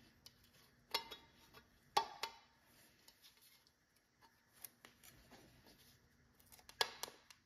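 Quiet handling of slit rubber fuel-line hose being pressed onto the edge of a hole in a sheet-metal plate as a grommet, with a few sharp clicks and taps: about a second in, twice around two seconds, and again near the end.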